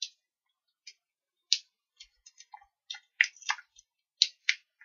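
Paper handling: a scatter of short, crisp clicks and crinkles as foam adhesive dots (Dimensionals) are peeled from their backing sheet and pressed onto the back of a cardstock panel. The clicks come more often in the second half.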